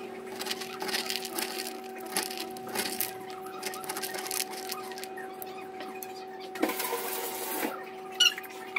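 Dog food being broken up and mixed by hand in a dog bowl: small scattered clicks and crackles, mostly in the first few seconds, over a steady hum. A brief rustling hiss comes about seven seconds in.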